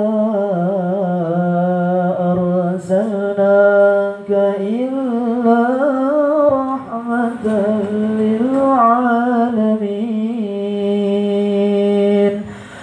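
A man's voice chanting Arabic Maulid recitation into a microphone, drawing one syllable out into a long ornamented melody that waves up and down around a steady low note. It breaks off briefly near the end before the next phrase begins.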